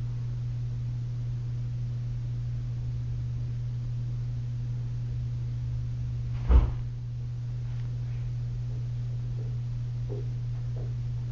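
A steady low hum throughout, with one sharp knock a little past halfway. A few faint soft clicks come near the end.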